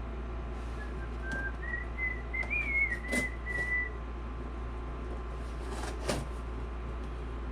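A person whistling a short, wavering tune for about three seconds, over a steady low hum, with a couple of sharp clicks from handling things.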